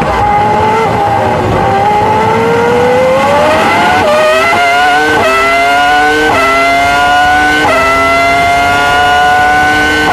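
Ferrari V10 Formula One engine heard onboard, pulling out of a corner at low revs, then revving up hard under full throttle. Four quick upshifts follow, each a sudden drop in pitch and then a rising wail, with the gears coming further apart as speed builds.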